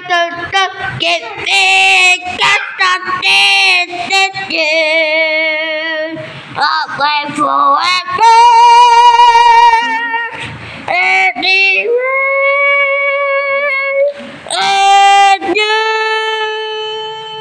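A high voice singing, with short broken phrases at first and then several long held notes, one of them wavering up and down about four to six seconds in.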